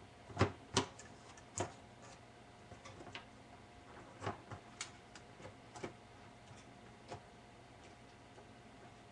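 Irregular clicks and light knocks of small parts of a portable reel-to-reel recorder being handled and fitted during reassembly, three sharper ones in the first two seconds and scattered softer ones after, over a faint steady hum.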